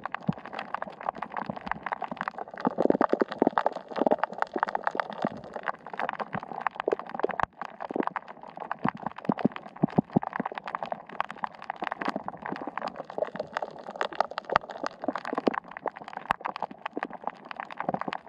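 Dense, irregular underwater crackling and clicking, many small clicks a second, picked up by a camera submerged over a coral reef.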